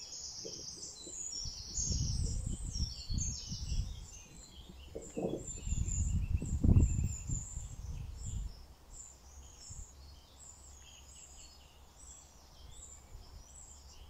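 Garden birdsong: several birds chirping and singing in short overlapping phrases throughout. Beneath it, a low rumble swells and falls over the first eight seconds or so, loudest about two-thirds of the way through that stretch, then fades away.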